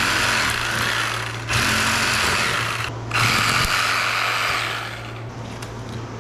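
Cordless reciprocating saw cutting through a deer's ribs where they join the spine, running in three bursts with short breaks between them and stopping about five seconds in.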